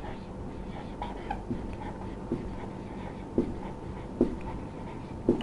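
Marker writing on a whiteboard: a few short, separate strokes and squeaks spaced about a second apart over a faint steady room hum.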